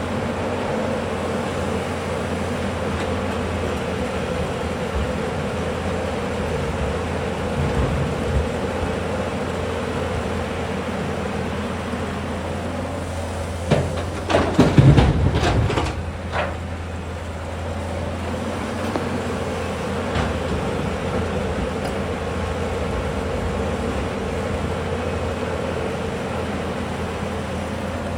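Tata Hitachi excavator's diesel engine running steadily under work. About halfway through comes a short burst of loud knocks and clatter.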